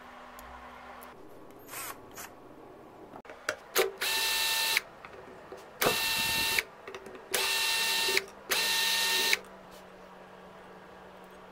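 Power drill-driver with a hex bit, run in four short bursts with a steady motor whine, backing out the screws of the pump's end plate. A few light knocks come before the first burst.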